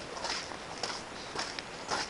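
Footsteps on icy, crusted snow and mud, about four steps at a steady walking pace.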